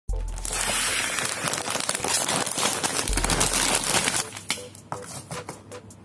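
Plastic packaging crinkling and rustling as it is handled, a dense crackle that thins to scattered crackles after about four seconds. Background music with deep bass notes plays underneath.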